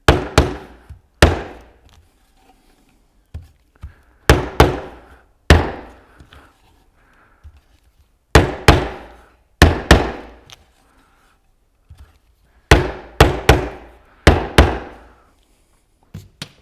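Rubber mallet striking a cedar wooden frame, knocking its glued box joints together: about fifteen solid blows, mostly in quick pairs or threes with pauses of a second or more between groups.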